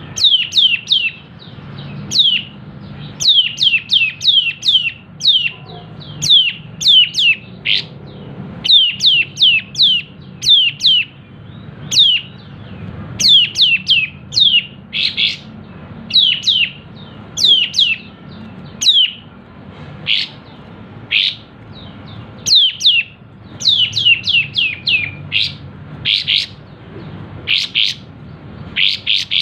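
Kapas tembak songbird singing hard: a rapid, continuous run of short, high, down-slurred notes, often fired in quick clusters of two to five, over a faint steady hum.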